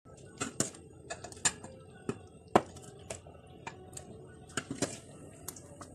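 Metal ladle clinking and scraping against the sides of an aluminium pot and an enamel pot while stirring thick soup: irregular sharp clinks, a couple of them a second, the loudest about two and a half seconds in.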